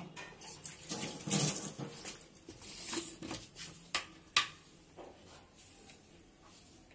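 Kitchen handling sounds at a glass mixing bowl of wet potato-and-egg mixture: soft irregular wet scraping and rustling, with a few sharp clicks of a metal spoon or utensil, fading near the end.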